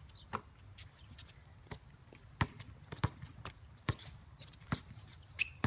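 Basketball bouncing on an outdoor hard court: about eight sharp bounces at uneven spacing as the ball is dribbled and passed, with players' footsteps on the court.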